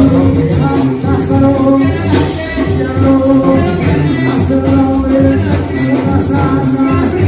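Live Mexican banda music played loud, with brass holding long notes over a steady beat.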